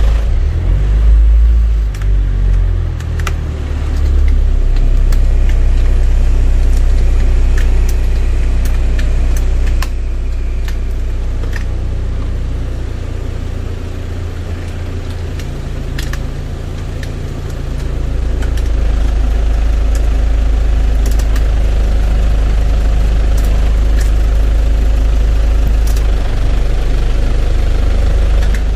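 Hyundai County minibus engine idling, heard from the driver's seat inside the cab, with scattered small clicks from the heater and fan control knobs and dashboard switches being worked. The running sound drops in level about ten seconds in and comes back up after about eighteen seconds.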